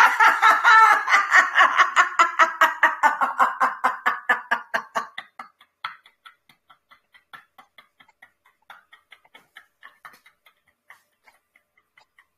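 A woman laughing in a fast, rhythmic 'ha-ha-ha', about five pulses a second. After about five seconds the voice drops away and the laughter thins into faint, voiceless breath pulses. This is the laughter-yoga exercise of ending a laugh in silent coughing-out.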